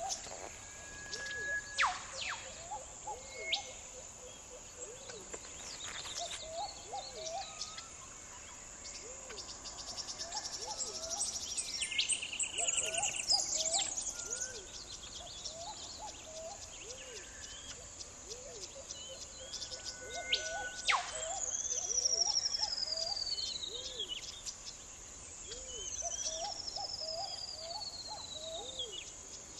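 Bush birds calling over a steady high insect chorus: a low hooting note repeats about every second and a half, with scattered chirps and short trills, and two long falling whistles in the second half.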